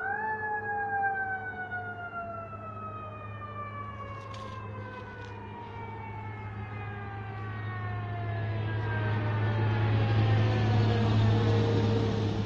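Fire engine siren sweeping up sharply at the start, then falling slowly in pitch over about ten seconds. A truck engine's low drone and road noise grow louder toward the end.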